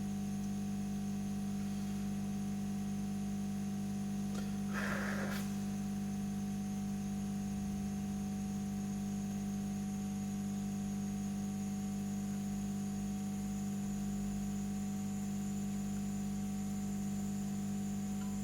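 Steady electrical hum, with a brief soft rustle about five seconds in.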